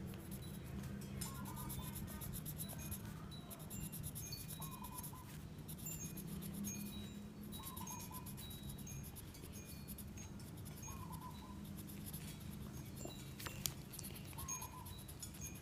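Quiet background music of soft chime-like notes, with a short phrase recurring about every second and a half to two seconds. Under it is the faint scratching of colouring on paper.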